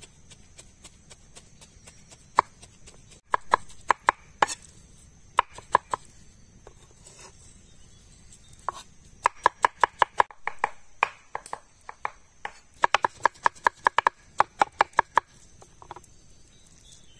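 Large kitchen knives chopping a soft vegetable seekh-kabab mixture on a wooden board. The first strikes come singly, then in quick runs of about six a second with short pauses between.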